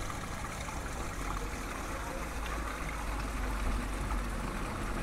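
Water from a stone fountain's spouts splashing and trickling steadily into its basin, over a low rumble.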